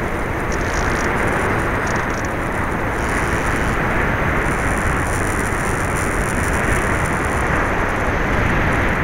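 Steady rush of wind over the onboard camera microphone mixed with the electric motor and propeller of an FPV-Raptor 1600 RC plane in flight, with a high hiss that comes and goes.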